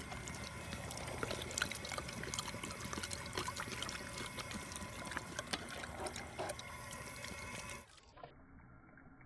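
Drinking-fountain water running while two Great Danes lap and splash at the stream, with many small wet clicks and splashes. About eight seconds in it cuts off abruptly to a much quieter, muffled sound.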